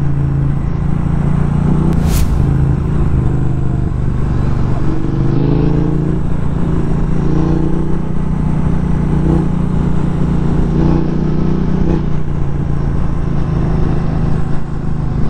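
Motorcycle engine running at a steady pitch while riding, over an even rush of road noise. A short click about two seconds in.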